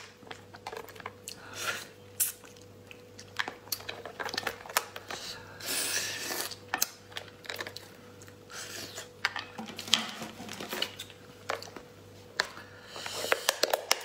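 Cooked lobster being pulled apart by hand: the shell cracks and tears in sharp crunches and clicks, mixed with chewing. Near the end comes a quick run of clicks as shears cut into a claw shell.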